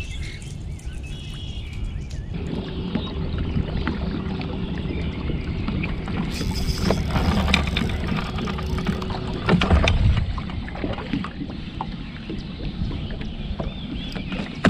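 Small fishing boat on the water: a steady low rumble with a steady hum that comes on about two seconds in and stops near ten seconds, scattered clicks and rattles, and a louder knock about ten seconds in.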